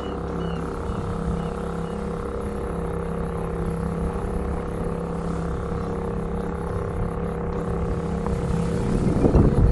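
Small boat's motor running steadily at trolling speed under wind and water rush. The rush grows louder and rougher near the end.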